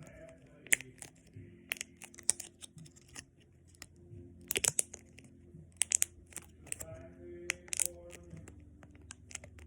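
Handmade snapper fidget toy being pressed over and over: sharp irregular snaps and clicks, some single and some in quick little clusters.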